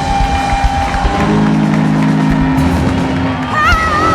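Live soul band of electric guitar, bass and drums playing the song's closing bars: held chords over drum hits, with a high wavering note near the end.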